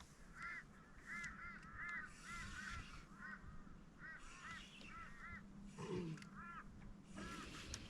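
Birds calling: a long run of short notes that rise and fall in pitch, often two or three in quick succession, fairly faint over a low steady hum.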